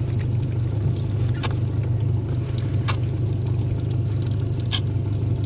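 A boat's outboard motor idling with a steady low rumble. A knife taps sharply on a plastic bait board three times as bait is sliced.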